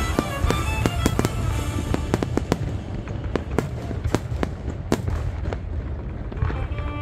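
Fireworks going off in quick, irregular bangs and cracks over a steady low rumble, with the show's accompanying music. The music fades out early on, leaving mostly the bursts, and comes back near the end.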